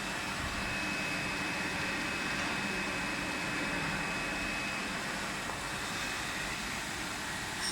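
Steady running noise of an SXG-45H 3D printer filament extrusion line, with a thin high whine that stops about five seconds in.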